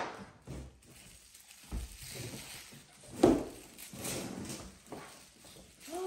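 Crinkling of the paper wrapping on a wooden toy food piece as it is handled and unwrapped, with a single sharp knock about three seconds in.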